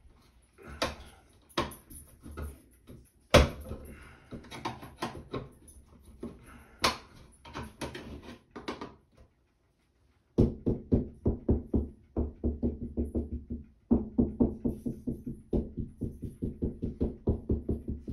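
Screwdriver clicking and scraping against the sheet-metal housing of a ceiling exhaust fan, in irregular knocks with a sharp one about three seconds in. After a brief gap, a steady rhythmic pulsing of about five beats a second takes over.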